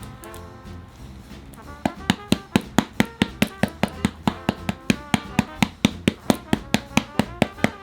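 A utensil clicking rapidly against a bowl while mixing, about five strokes a second, starting about two seconds in, over background music.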